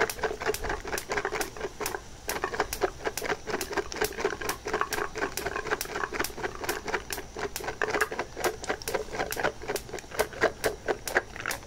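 Canned green peas boiling in a pan on a gas stove: a rapid, irregular clicking and popping of bubbles, several clicks a second.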